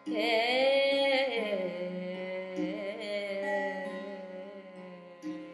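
A woman's voice singing a wordless Carnatic-style phrase: sweeping, wavering ornaments for the first second or so, then a long held note, over a steady string drone.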